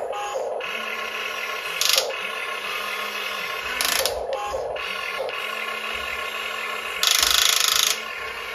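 Diecast Masters 1:24 RC Cat 336 excavator working its arm and bucket: the sound kit's simulated engine hums steadily under the whir of the small drive motors. Short clicks come about two and four seconds in, and a loud rattling click lasts about a second near the end, the clicking it makes when a joint is driven to the end of its travel.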